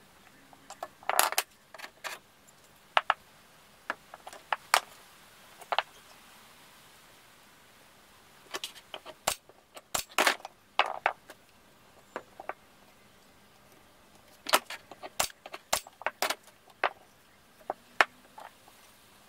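Wooden drawer-box boards knocking and clattering against each other as they are fitted together by hand, with a few sharp shots from a pneumatic nailer driving pins into the corners, in two groups partway through.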